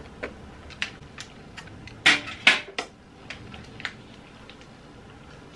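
Wet lip smacks and mouth clicks from licking butter off a table knife, with a cluster of three louder smacks about two seconds in.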